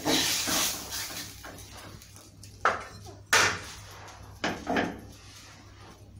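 Steel ladle scraping and stirring a thick vegetable mash in a non-stick wok: a longer scrape first, then several short scrapes and knocks against the pan.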